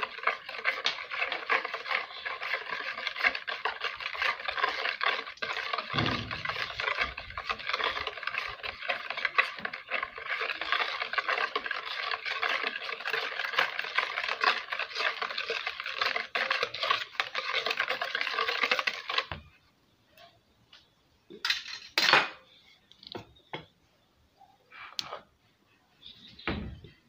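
Wire whisk beating cake batter fast in a plastic bowl: a steady rapid clatter of wire against the bowl that stops suddenly about two-thirds of the way through. A few scattered knocks follow.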